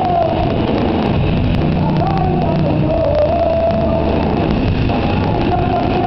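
Loud live rock band playing through a PA: drums and electric guitar, with a voice holding long sung notes.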